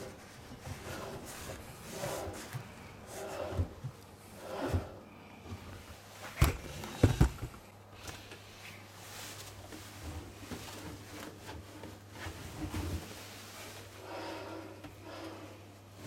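Laundry being pulled by hand out of a front-loading washing machine's drum: cloth rustling and dragging in bursts, with two sharp knocks about six and a half and seven seconds in.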